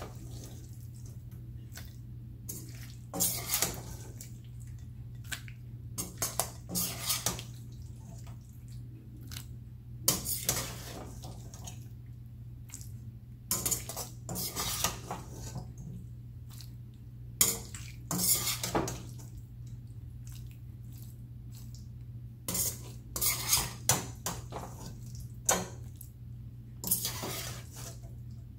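A metal spoon scraping and clinking against a frying pan as cooked drumsticks are scooped out into a glass bowl, in short bursts every few seconds, over a steady low hum.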